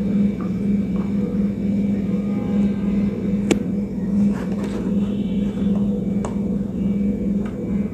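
A steady low background hum with a slight even pulse, and a couple of faint clicks.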